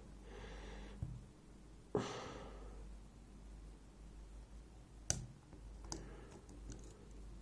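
Faint, sparse metallic clicks of lock-picking tools working inside a Zeiss IKON WSW lock cylinder, the sharpest about five seconds in, with a soft exhale about two seconds in.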